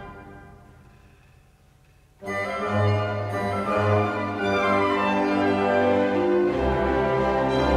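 Background music: a chord fades away over the first two seconds into a moment of near-quiet. A new passage of held chords then begins, and a deeper bass line comes in near the end.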